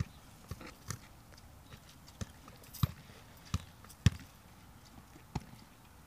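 A football being juggled and kicked: about eight short thuds of foot and knee touching the ball, spaced irregularly, the strongest around the middle.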